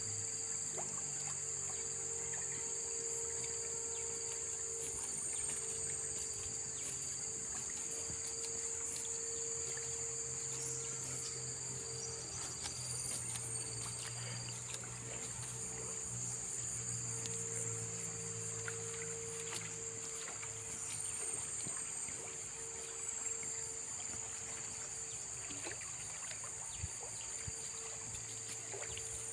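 Insect chorus: a steady, shrill high drone with a short falling note repeating above it every few seconds. A low hum runs underneath.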